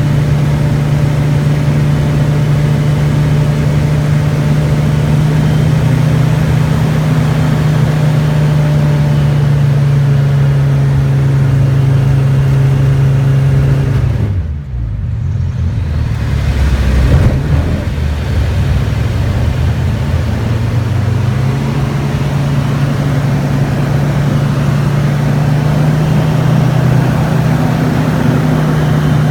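Aircraft engine droning at a steady pitch through a loop manoeuvre; about halfway through, the pitch and level dip sharply, then the engine note climbs back to its steady drone a few seconds later.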